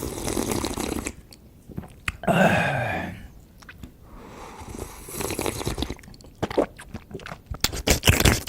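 A person eating and drinking close to the microphone: sipping noises, a short low voiced 'ah' that falls in pitch about two seconds in, more sipping, then crisp crunchy chewing near the end.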